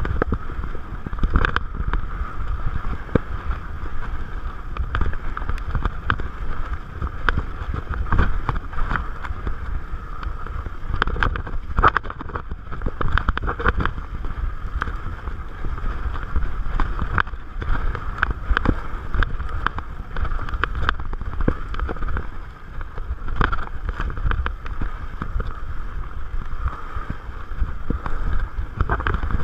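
Salsa Bucksaw full-suspension fatbike descending a dirt singletrack: wind rumbling on the camera microphone over steady tyre noise, with frequent short clatters and rattles from the bike over bumps and rocks.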